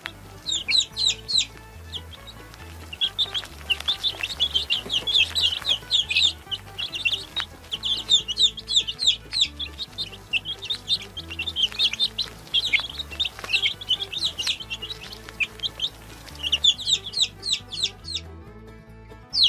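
A group of baby chicks peeping: many short, high, downward-sliding peeps overlapping in quick runs, with a brief lull about two seconds in and the peeping dying away shortly before the end.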